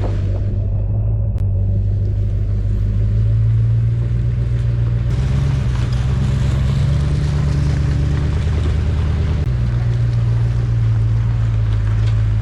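An engine running steadily with a loud low hum, its speed shifting up a few seconds in and dropping back about three seconds before the end.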